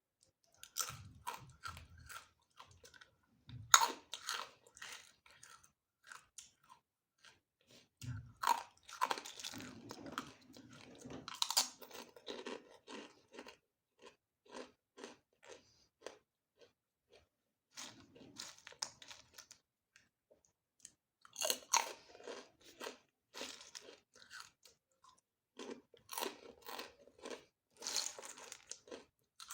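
Close-up crunching of crisp food being bitten and chewed, in repeated bouts of dense crackly crunches with short quieter pauses between mouthfuls.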